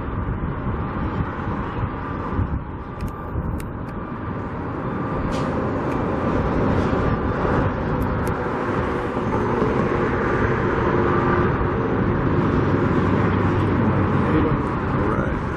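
Steady outdoor rumble of road traffic, growing louder about six seconds in, with a few faint clicks.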